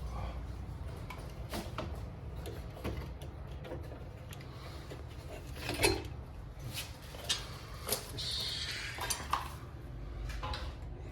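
Scattered clicks and knocks of hard parts being handled, over a low steady hum, with a short hiss a little after two-thirds through.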